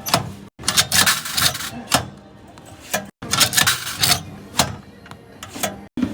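Quick runs of sharp clicks, clatters and rattles, broken by abrupt cuts where the sound stops dead, typical of a coin-and-card vending machine being worked.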